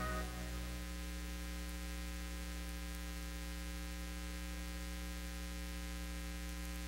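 Steady electrical hum with a ladder of overtones and a faint hiss, the background noise of a digitized VHS tape transfer. The tail of the closing music dies away in the first second.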